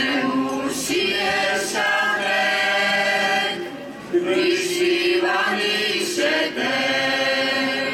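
Slovak folk ensemble singing together in several voices, with held notes. The singing breaks off briefly just before four seconds in, then a new phrase begins.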